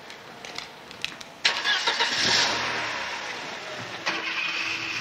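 Mercedes-Benz W124 taxi's engine starting about a second and a half in and then running steadily. A few light taps come before it, and a sharp click about four seconds in.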